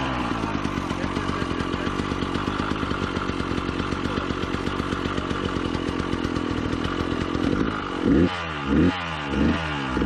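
KTM enduro motorcycle engine running steadily on choke, freshly restarted after being drowned in a stream and drained of water. Near the end it is revved in four quick blips.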